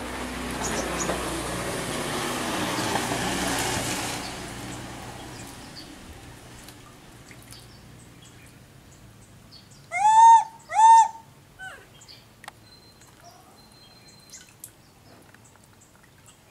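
Water splashing and sloshing in a plastic tub as a monkey bathes in it, fading after about five seconds. Near the middle come two loud call notes about a second apart, each rising then falling, with a faint shorter note after them.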